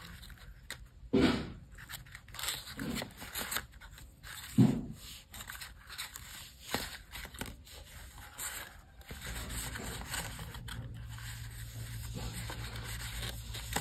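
Hands handling craft materials, with irregular scraping and rubbing and a few sharp knocks. A low steady hum comes in about two-thirds of the way through.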